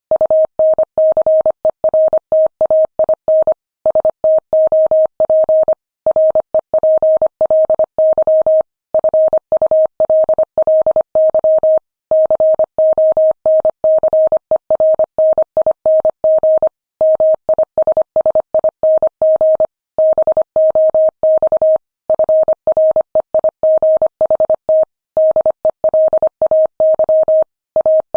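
Morse code sent at 25 words per minute as a single pure tone keyed on and off in quick dots and dashes, with brief silent gaps between words.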